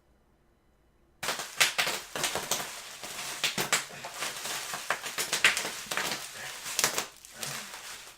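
Packaging crinkling and rustling as it is handled, with many sharp crackles. It starts abruptly about a second in, after near silence, and dies down near the end.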